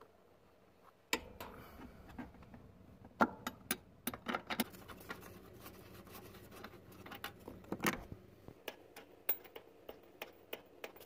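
Faint, scattered clicks and knocks of a wrench and metal parts as a clutch master cylinder is unbolted from the firewall and worked free. A low rumble sits underneath from about a second in until past the middle.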